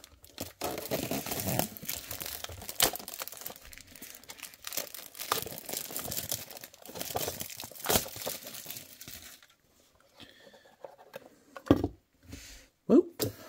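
Thin clear plastic protective film crinkling and crackling as it is peeled off a wooden model building, for about nine seconds, followed by a quieter stretch with a few light knocks near the end.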